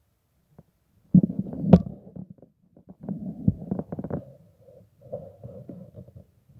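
Handling noise from a handheld camera: a curtain's fabric rubbing and bumping over the microphone as it is pushed aside. The rubbing starts about a second in, with one sharp click shortly after, and goes on more faintly in uneven scuffs.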